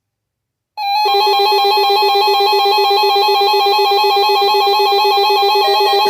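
Synthesized ringtone-like electronic tone that starts abruptly about three-quarters of a second in and holds steady, pulsing rapidly at an even rate.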